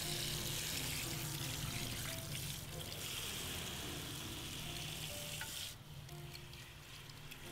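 Water spraying from a handheld salon shower head onto hair over the shampoo basin, a steady hiss that cuts off sharply near the end, with soft background music underneath.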